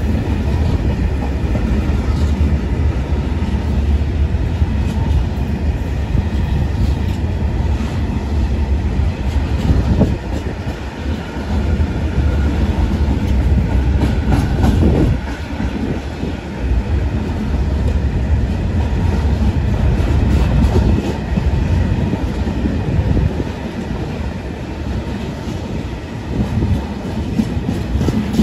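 A freight train of PKP Cargo Falns bogie hopper wagons rolling past close by. There is a steady low rumble of wheels on rail, clacking over the rail joints, and faint squealing now and then.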